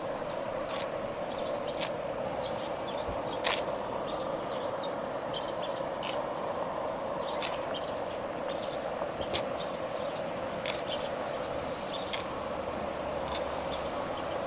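Crisp toasted nori being torn and crumbled by hand, giving short dry crackles, over a steady hiss with sharp ticks every second or so.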